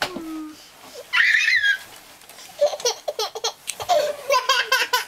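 A young child squeals once, high-pitched, about a second in. Then the child giggles in a quick run of short laughs.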